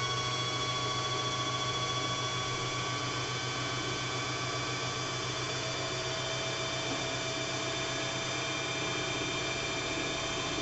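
Singer 2250 sewing machine's motor running steadily under the pedal, driving the bobbin winder to fill a bobbin. It is a steady whine over a low hum, and the pitch sinks slightly over the stretch.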